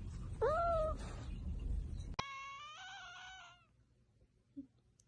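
Two cat meows: a short, rising-then-falling one about half a second in, over a steady low rumble, then a longer, higher-pitched meow lasting about a second and a half that starts just after the rumble cuts off about two seconds in.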